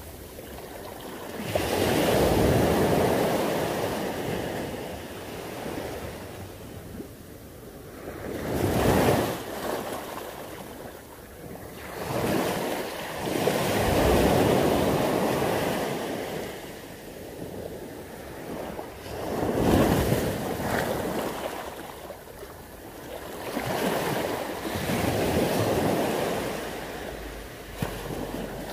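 Sea waves breaking on the shore, the surf swelling and washing back in surges about every five to six seconds.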